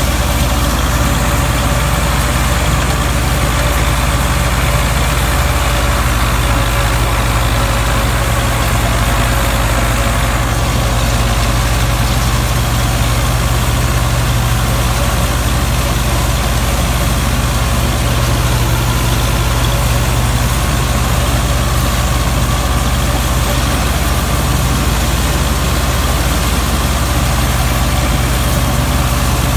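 Belarus 510 tractor's four-cylinder diesel engine running steadily under load, driving a PTO wheat straw chopper. The chopper's rotor and blown straw add a steady rushing noise over the engine's drone.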